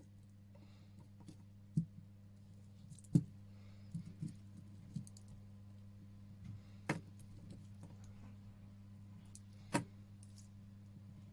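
Light metallic clicks and clinks from the titanium bracelet of a Seiko perpetual calendar watch being handled and fitted, with about a dozen irregular taps and three sharper ones. A steady low hum runs underneath.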